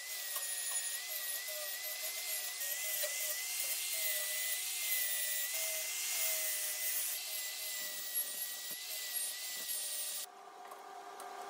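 Angle grinder grinding steel angle iron: a steady hiss of disc on metal over the motor's high whine. The grinding stops abruptly about ten seconds in, leaving a fainter steady hum.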